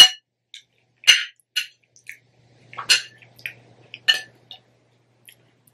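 Metal spoon clinking and scraping against a clear glass bowl of salad, about five sharp clinks spread over several seconds with lighter taps between.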